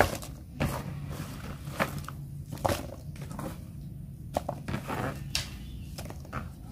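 Genjer flower stalks broken up by hand and dropped into a plastic bowl: irregular crisp snaps and light clatters, over a low steady hum.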